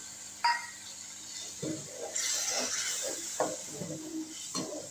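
A steel slotted spoon clinks once against the cooking pan about half a second in, then scrapes and stirs through the spice masala in short strokes. From about two seconds in, a sizzling hiss comes up as water meets the hot oil and spices.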